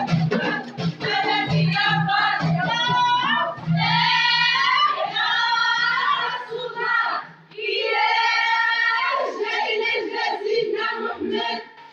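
A song with several voices singing together over music, the voices wavering with strong vibrato; a low steady backing tone drops out about four seconds in.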